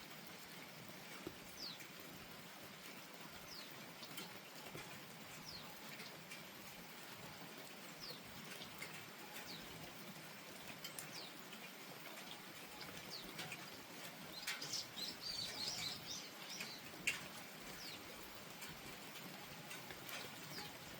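Steady light rain with scattered sharp drips, while a bird gives short, high, falling chirps every second or two, breaking into a quick burst of twittering a little past the middle.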